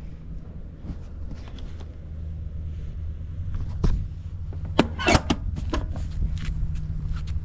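Honda Motocompo's small two-stroke single-cylinder engine idling steadily with no abnormal noise, with a few sharp clicks and knocks about halfway through.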